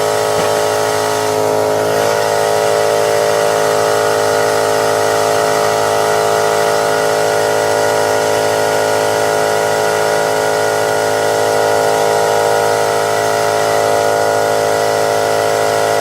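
Pneumatic air ratchet running with a steady, even whir.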